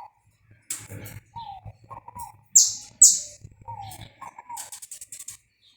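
Saffron finch singing: two loud, sharp high notes about half a second apart in the middle, then a fast chattering run. A lower short note repeats about every second and a half throughout.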